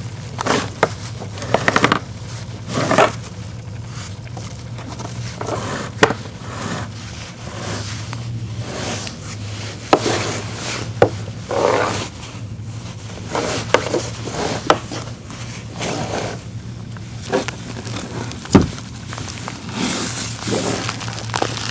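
Irregular scrapes, rubs and knocks as rope and a plate anchor are handled against a plastic kayak hull, with one sharp knock about eighteen seconds in, over a steady low hum.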